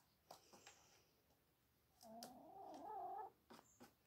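A hen giving one long, wavering call about halfway through, with a few faint taps around it.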